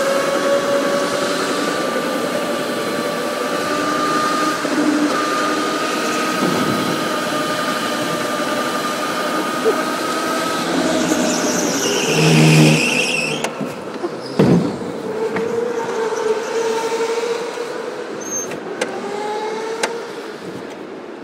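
Electric go-kart motor whining steadily, its pitch drifting slowly as the kart changes speed. A brief, louder, high squeal comes about twelve seconds in.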